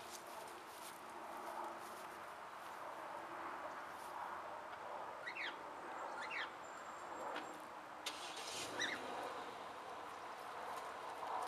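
Pickup truck engine running steadily and faintly, with a few short rising bird chirps over it.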